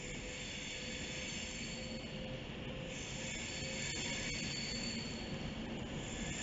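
Steel wheels of an Avanti West Coast passenger train squealing as it moves slowly past the platform: a steady high-pitched squeal of several tones over the rolling noise, with a few light clicks.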